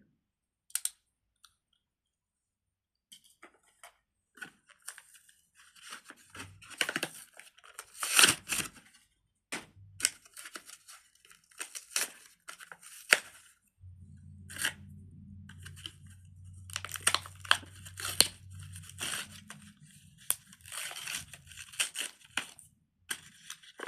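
Plastic fidget toy being worked by hand: irregular crackling, clicking and crinkling noises that start about three seconds in, with a low hum joining for several seconds around the middle.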